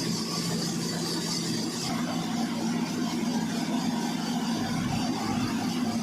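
Sawmill trolley saw running steadily with a constant low hum; a high whine stops about two seconds in.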